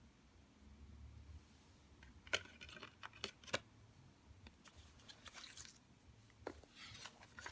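A plastic CD jewel case being handled: three sharp clicks, then softer rustling and a couple more clicks.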